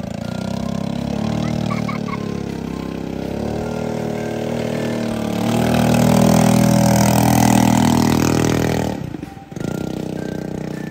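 Nittoo 7.5 hp four-stroke gasoline engine pushing a small outrigger boat at speed on its first test run. Its note rises and grows louder about five seconds in, breaks off briefly near nine seconds, then runs on steadily.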